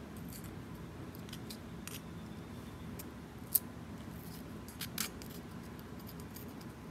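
A few faint, sharp clicks of small metal parts being handled and fitted together, the clearest about halfway through, over a low steady hum.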